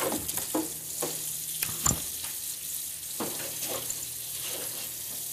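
Water running into a kitchen sink while dishes and utensils clink and clatter, several sharp knocks over a steady hiss.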